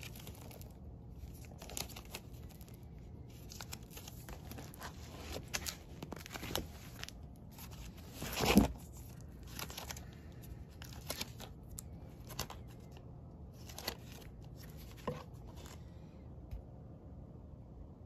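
Vinyl LP jackets in clear plastic outer sleeves being flipped through by hand in a record bin: irregular crinkling of the plastic and soft knocks as the records fall against each other, with one louder knock a little before the middle.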